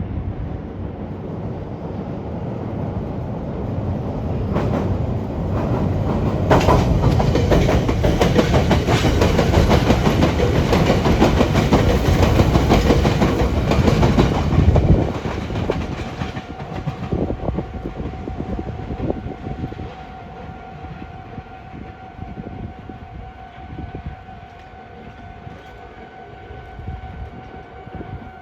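A Meitetsu electric train passing over the points at a railway junction, its wheels clattering rapidly over the rail joints and crossings. The clatter builds, is loudest for several seconds, drops off suddenly about halfway through and fades. A steady high tone comes in after that.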